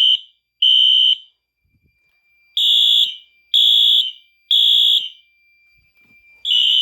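Wheelock fire alarm horn strobes sounding in the code-3 temporal pattern: high-pitched half-second beeps in threes, each group followed by a pause of about a second and a half. The alarm was set off by a smoke detector.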